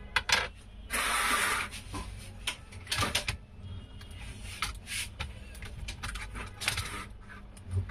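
Handling of a laptop motherboard as it is worked loose from the plastic chassis: a string of small clicks and knocks, with a short scraping rustle about a second in.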